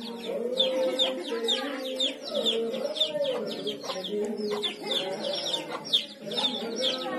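Chickens: chicks peeping rapidly in short, high, falling chirps over the lower clucking of hens.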